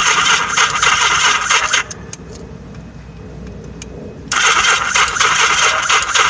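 Yamaha XS1100 motorcycle's inline-four engine being cranked by its electric starter in two bursts of about two seconds each, without catching: a no-start that the owner puts down to a weak battery and an incorrectly installed part.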